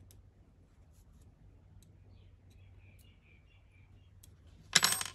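Small metal clicks and taps from a Shimano Deore DX rear derailleur's jockey-wheel cage being worked by gloved hands with a small tool, then a short, loud metallic clatter near the end.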